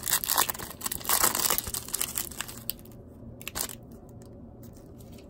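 Foil wrapper of a baseball trading-card pack being torn open and crinkled by hand, a dense crackle for about the first three seconds, then one short rustle after the crackle stops.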